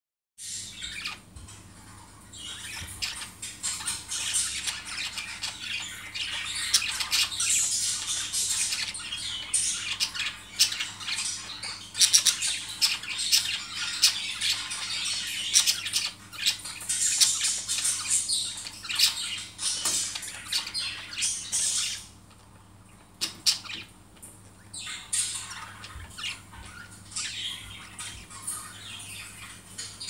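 Pet budgerigars chattering: a dense, continuous run of high chirps and squawks that breaks off for a few seconds about three-quarters through, then starts up again.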